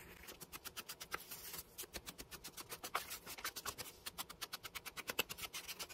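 Ink blending tool rubbed and dabbed rapidly along paper edges to ink them: a quick, even run of faint strokes, several a second.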